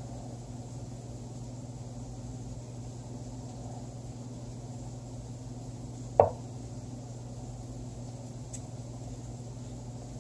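A single sharp wooden clack about six seconds in, the online chess site's move sound as the opponent's move lands on the board, over a steady low electrical hum.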